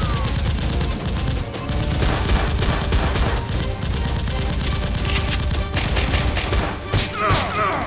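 Rapid bursts of gunfire, many shots in quick succession, like a sustained firefight, most likely gunshot sound effects dubbed over the action.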